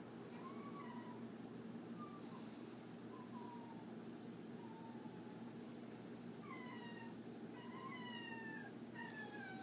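Faint, short high-pitched animal calls, one or two a second, each sliding slightly in pitch. They come faster and higher near the end, over a steady low hum.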